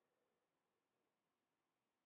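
Near silence: the audio is essentially muted, with only a faint noise floor.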